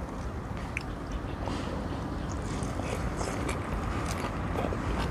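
A person eating by hand: fingers picking through eggplant salad and dried milkfish on a plate with small scattered clicks, then chewing a mouthful, over a steady low rumble.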